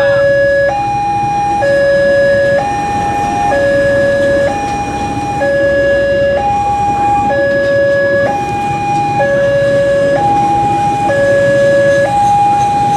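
Railway level-crossing warning alarm sounding a steady two-tone signal, a low tone and a higher tone alternating about once a second, over the low rumble of a passenger train passing the crossing.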